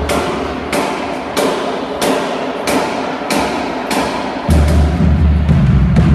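High school marching band playing: a steady beat of drum hits about every two-thirds of a second, ringing in the hall, with the sousaphones' low notes coming back in about four and a half seconds in.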